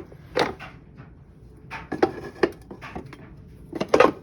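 Irregular knocks and clunks of a heavy metal riding-mower transaxle being handled and turned over, a handful of separate hits, the loudest near the end.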